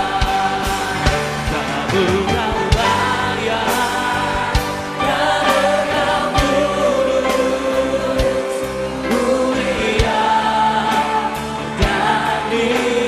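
A large choir and congregation singing a Christian worship song in long held notes, over a band with a steady drum beat.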